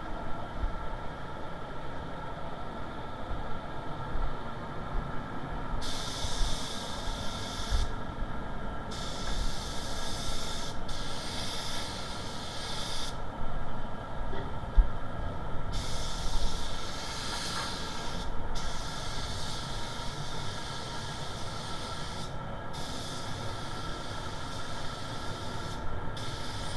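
Paint spray gun hissing in repeated stretches of a few seconds each as the trigger is pulled and released, the first starting about six seconds in, spraying paint onto a car bumper. Under it runs the steady drone of the spray booth's ventilation.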